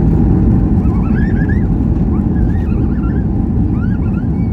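Loud, steady low rumble inside the cabin of a Boeing 737 MAX 8 rolling on the runway after landing: engine and wheel noise that slowly eases off. Faint, indistinct chirping or voice-like sounds come through over it from about a second in.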